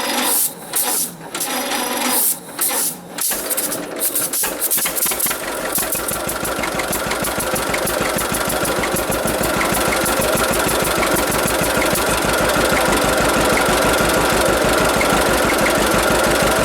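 John Deere AR two-cylinder engine turning over slowly on its 6-volt starter, in uneven surges, then catching about five seconds in and running steadily with an even low pulsing beat.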